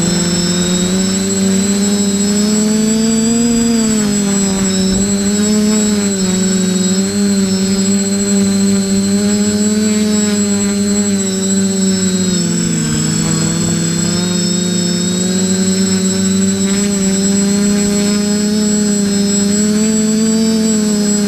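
Quadcopter drone's electric motors and propellers humming steadily as heard from its onboard camera, the pitch wavering up and down with throttle changes. A constant thin high-pitched whine runs alongside.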